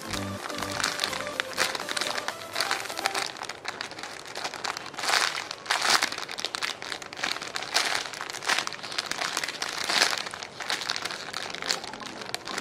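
Clear plastic packaging bag crinkling as a squishy toy is handled inside it, in irregular rustling bursts, loudest around the middle and again near the end.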